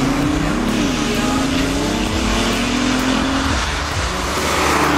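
BMW i8 hybrid sports car's engine under acceleration, its pitch rising, dipping and recovering about a second in, then holding steady. A rushing noise swells near the end.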